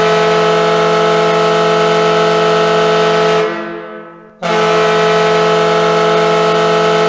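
Ice hockey goal horn sounding a steady, low, many-toned note in two long blasts. The first fades out with a trailing echo about three and a half seconds in, and the second starts sharply a second later.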